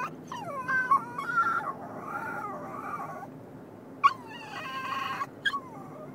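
A dog whining and crying in a series of high, wavering, mostly falling whimpers, a long run in the first three seconds and another about four seconds in. The dog is upset and scared. Steady low car road noise runs underneath.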